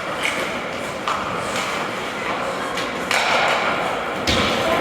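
Ice hockey play echoing through an arena: sticks and puck clacking in several sharp knocks, with a heavier, deeper thud about four seconds in, over the rink's steady background murmur.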